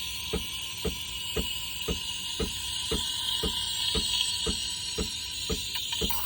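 Breville Barista Express steam wand hissing steadily in a pitcher of milk as it heats, with a regular tick about twice a second from the machine.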